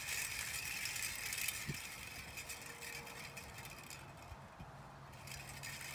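The metal cones of a jingle dress give a faint, scattered clinking as the dancer steps back into place. Under it runs a steady high-pitched drone that fades out about halfway through.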